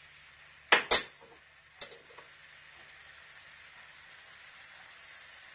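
Sauce simmering in an electric skillet with a faint, steady sizzle. Two sharp clinks of metal utensils come just under a second in, and a lighter one comes near two seconds.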